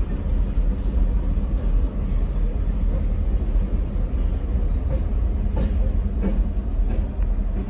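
Providence & Worcester diesel freight train passing over a grade crossing, with the steady low rumble of the locomotive's engine and steel wheels on the rails. A few sharp clicks come near the end as the locomotive goes by.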